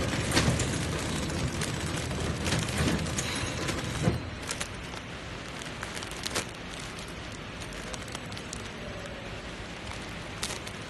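Clear plastic wrapping film crinkling and crackling, with scattered sharp crackles, as film-wrapped towel packs are handled. Under it is the running noise of a pillow-type packaging machine, heavier in the first four seconds.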